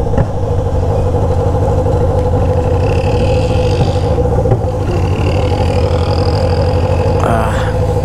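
Motorcycle engine with an aftermarket exhaust running steadily at low revs, its pitch holding level throughout; a brief gliding sound is heard about seven seconds in.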